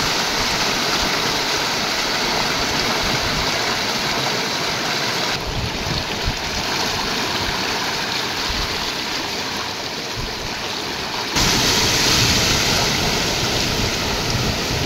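Floodwater rushing along a city street: a steady, loud hiss of flowing water that changes abruptly twice.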